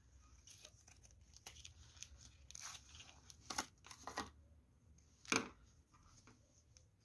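Faint crinkling and clicking of a clear plastic pen pack as four fineliner pens are slid out of it and handled, with a sharper knock about five seconds in.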